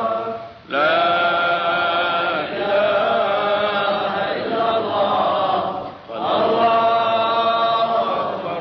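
A solo male voice recites the Qur'an in the melodic tajwid style, drawing each syllable out into long, ornamented phrases. He pauses briefly for breath about half a second in and again about six seconds in.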